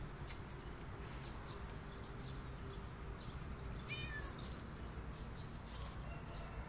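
A domestic cat gives one short, high meow that falls slightly in pitch about four seconds in, over a steady low background hum and faint scattered ticks.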